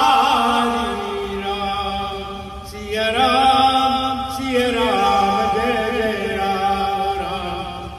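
Hindu devotional chanting to Ram, sung in long held melodic phrases, each sustained for a second or more before the voice moves on.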